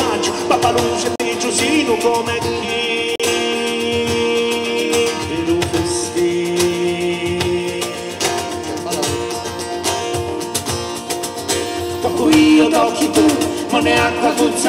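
Live acoustic band music: acoustic guitars and a cajón played by hand, with long held melody notes over a steady percussive beat.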